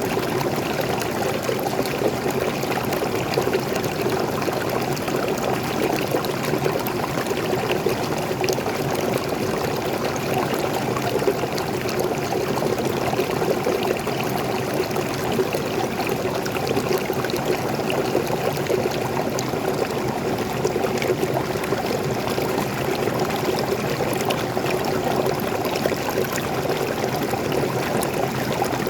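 Small forest waterfall and stream: water pouring and splashing steadily over rocks, a continuous rushing with fine splashes.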